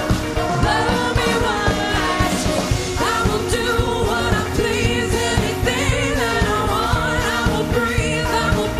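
Live pop-rock band playing with a steady drum beat and electric guitar, a woman singing lead into a microphone over it.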